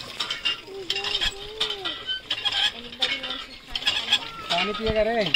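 Water from a hand pump splashing into a steel pot and a steel bucket, with light metallic clinks. Children's voices are faint in the background.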